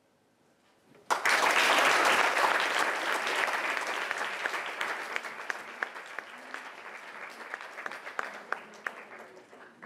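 Audience applauding. The applause starts suddenly about a second in, is loudest for the first couple of seconds, then slowly dies away, with single claps standing out near the end.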